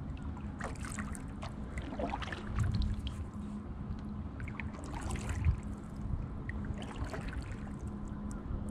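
Double-bladed kayak paddle strokes: the blades dipping into the river and splashing, with water trickling off them between strokes.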